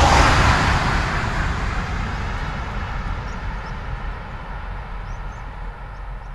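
Z 51515M, a Régiolis electric multiple unit, finishing its pass at speed and running away down the line. The rumble and rush of its wheels on the rails fade steadily as it recedes.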